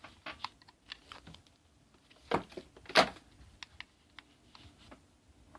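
Handling of a camcorder and its battery: a string of small plastic clicks and taps, with two louder knocks a little over two and three seconds in.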